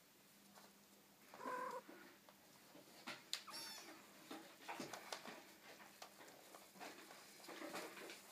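Four-week-old Ocicat kitten giving one short mew about a second and a half in, among faint scattered taps and scrabbling of the kittens' paws and claws on a wooden floor and a loose cable.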